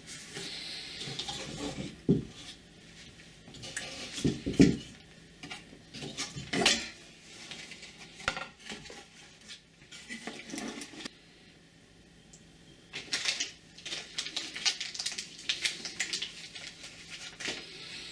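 Irregular metallic clinks and knocks of parts and tools being handled while a wheel is fitted onto its hub, the loudest knocks a few seconds in, followed by a run of quick small clicks in the second half.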